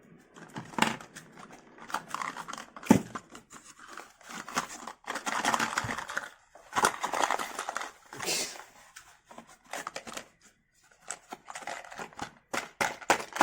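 Cube box and plastic packaging being handled and pried open: irregular crinkling, scraping and sharp clicks, with one louder click about three seconds in.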